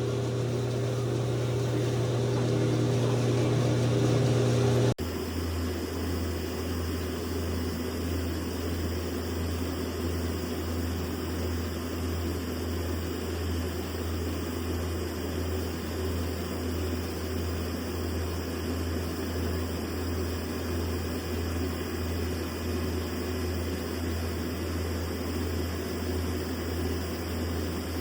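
Steady mechanical hum of running machinery. About five seconds in it cuts abruptly to a lower hum that pulses slightly.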